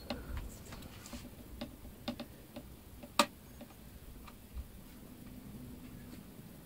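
Small irregular clicks and taps of a screwdriver working on a netbook's screws and plastic casing during disassembly, with one sharper click about three seconds in.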